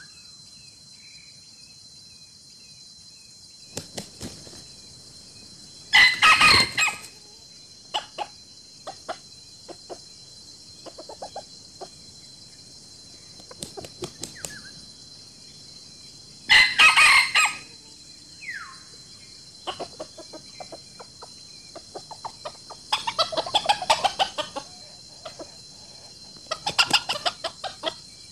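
Chickens calling: a few loud, roughly one-second calls, the loudest about 6 and 17 seconds in, and a quick run of pulsed calls near the end, with scattered short clucks in between. A steady high insect drone runs underneath.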